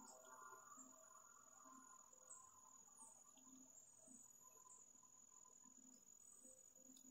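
Near silence, with a faint, steady high-pitched insect trill such as crickets make.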